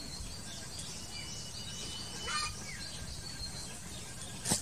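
Small birds chirping in short repeated calls, one holding a thin steady whistle for about a second, over a steady low outdoor rumble. A single sharp click sounds near the end.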